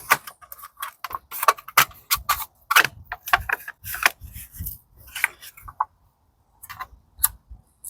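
Irregular light clicks and knocks of small metal parts and tools being handled, with a short pause about two-thirds of the way through.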